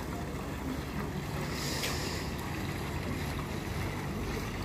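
Wind buffeting the microphone: a steady low rumble under a rushing hiss, which swells briefly about two seconds in.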